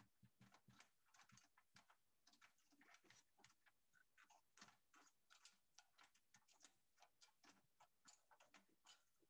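Near silence with faint, irregular clicks and taps of the DVD drive's metal housing being handled and seated in the recorder's sheet-metal chassis.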